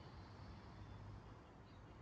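Near silence: faint outdoor ambience with a steady low hum underneath.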